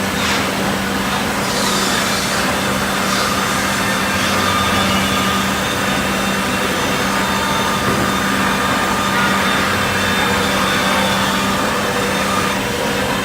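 CNC wood jigsaw machine running and cutting wood: a steady, continuous mechanical noise over a constant low hum.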